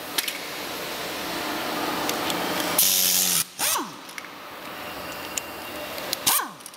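Pneumatic impact wrench on an air hose, triggered in two short bursts: a loud air hiss and motor whine, each dying away in a falling whine as the tool spins down. The first burst comes about three seconds in and the second, shorter one near the end, over a steady background hiss. The wrench is being used on the rear wheel's axle nut to take the wheel off.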